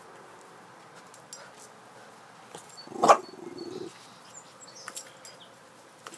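A Boston terrier gives one short, wary bark about three seconds in, trailing into a brief low grumble.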